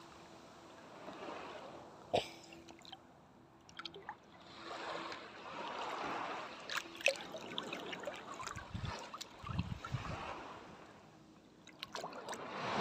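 Seawater sloshing and trickling close to the microphone as a swimmer moves in the water. It comes in faint swells, with a few sharp little splashes.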